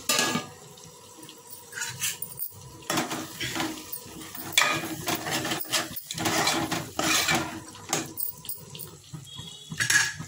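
Thick masala curry gravy with brinjal in a steel pan, making irregular wet squelching sounds in about six separate bursts.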